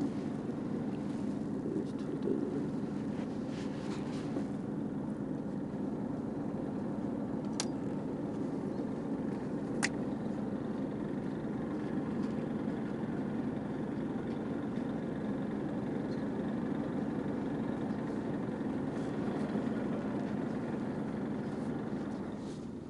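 Boat engine running steadily underway, a low, even drone, with two faint sharp clicks about eight and ten seconds in.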